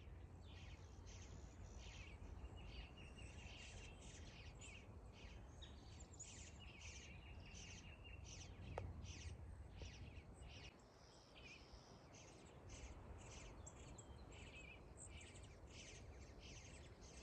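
Near silence with faint chirping repeating about twice a second over a low steady hum, and a single sharp tick about nine seconds in.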